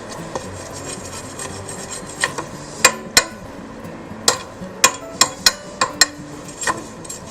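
Steel file scraping and knocking against a stick weld to clear slag that has stuck fast on the 6013 bead. Faint rasping at first, then about ten sharp metallic strikes with brief ringing, irregularly spaced.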